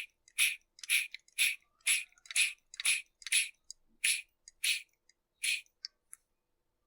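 Hand vacuum pump being worked stroke after stroke to pull vacuum on a sealed chainsaw crankcase for a leak-down test: about eleven short hissing strokes, roughly two a second, stopping about five and a half seconds in, with a couple of small clicks after.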